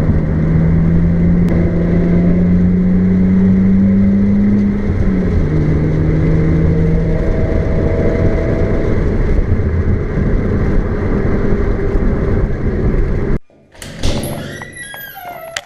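Car engine and road noise while driving. The engine note climbs steadily for about five seconds, then drops suddenly as the car shifts up, and settles into a steadier drone with road noise. The sound cuts off abruptly near the end, followed by brief high chirping sounds.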